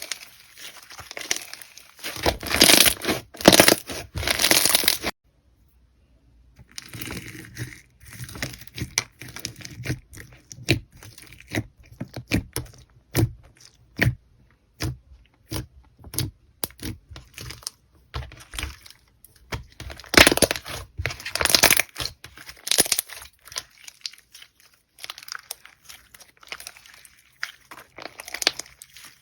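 Slime being squeezed and worked by hand, giving crinkly crackling and many sharp clicks and pops. It stops briefly about five seconds in, then goes on as a run of separate clicks with a denser crackly stretch near twenty seconds.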